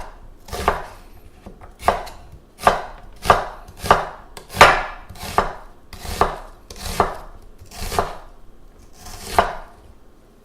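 Kitchen knife slicing an onion on a cutting board: a steady run of sharp knocks, about three every two seconds, stopping just before the end.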